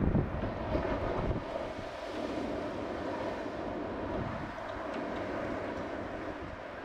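Strong offshore wind rumbling on the microphone in gusts, heaviest at the start and again about a second in, over a steady rush of breaking surf.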